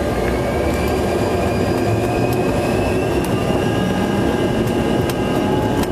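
Cabin noise of a CRJ200 rolling on the ground: the rear-mounted GE CF34 turbofans' steady rumble with a whine that rises slowly in pitch as the engines spool up.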